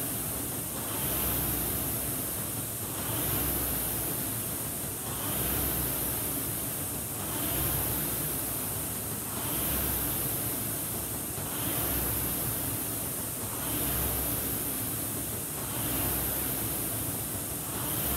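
Concept 2 rowing machine's air-resistance flywheel whirring, swelling with each hard drive and easing on the recovery, about one stroke every two seconds (a rating of about 30 strokes per minute).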